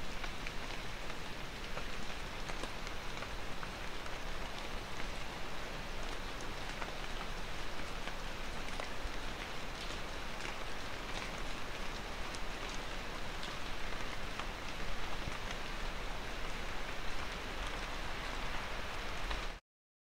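Steady rain falling: a dense, even hiss with many small drop ticks. It cuts off suddenly near the end.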